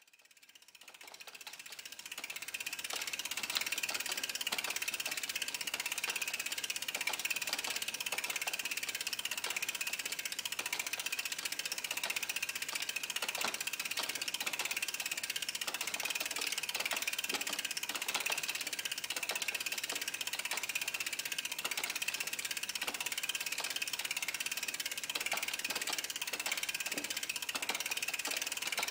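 Bicycle rear wheel spinning, its freewheel hub pawls ticking in a rapid, steady run of fine clicks. The sound fades in over the first few seconds.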